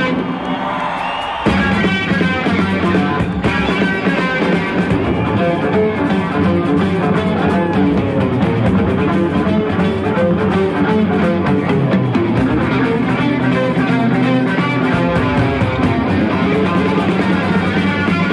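Rock music with guitar, getting louder and fuller about a second and a half in.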